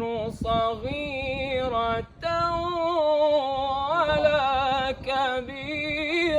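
Male Quran reciter chanting in melodic tajweed style, unaccompanied and with no added effects. He holds long notes with ornamented waves in pitch, with a short break for breath about two seconds in.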